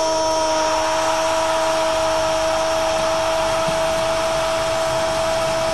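Football TV commentator's long, held cry of "gol" on one steady note, marking a goal, over the noise of the stadium crowd.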